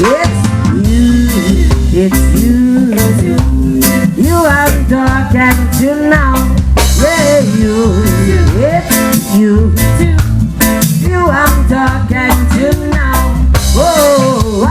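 Live band playing a drum kit and bass groove, with a lead melody line that slides up and down over it.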